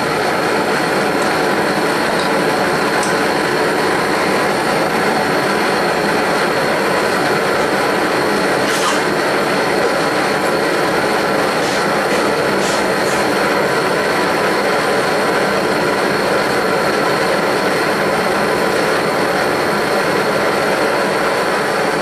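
Bernz-O-Matic JT539T swirl-flame propane torch burning steadily into a micro melting furnace, a loud, even rush of flame with no let-up while it heats a crucible of silver to melting.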